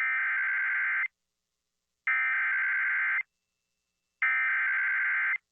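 Emergency Alert System SAME header: three bursts of data tones, each about a second long with about a second's pause between. This is the repeated digital code that opens an EAS alert, here the start of a severe thunderstorm warning.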